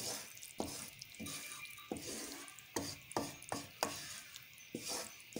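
Wooden spoon stirring gram flour roasting in ghee in an aluminium pot, knocking and scraping against the pot in short irregular taps, roughly two a second.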